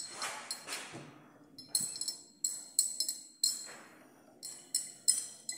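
Glass conical flask being swirled under a burette, clinking against the burette tip in a run of sharp, ringing chinks about two to three a second, after a brief rustle at the start.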